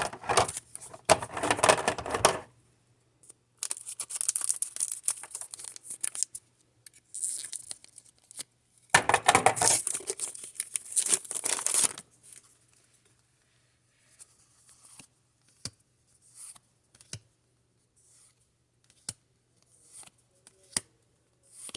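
Pokémon card packaging torn open and crinkled in three bursts over the first twelve seconds, followed by scattered light rustles and clicks.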